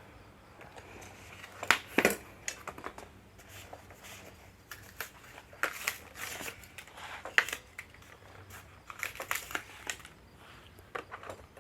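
Cardboard box and packing material being handled and crushed: irregular crackling, crinkling and sharp knocks in clusters.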